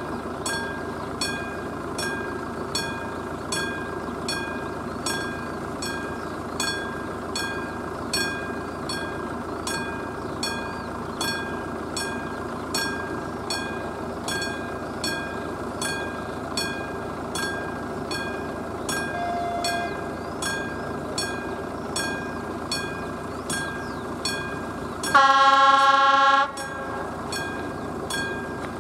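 Classic electromechanical level-crossing bell ringing steadily, about two strikes a second. About 25 seconds in, the approaching train's horn sounds loudly for about a second and a half.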